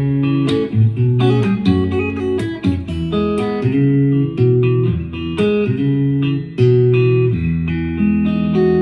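Guitar playing a melody of plucked single notes and chords, recorded through a phone; the last notes are left ringing near the end.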